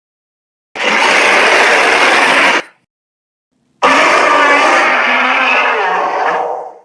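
Two monster roars made by a person's voice and edited into a creature effect. The first lasts about two seconds; the second, about three seconds, fades out at the end.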